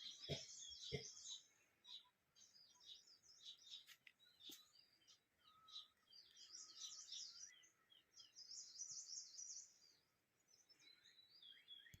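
Several small birds chirping and twittering together in a faint morning chorus, with quick high trills that thicken in two spells around the middle and a run of evenly repeated notes near the end.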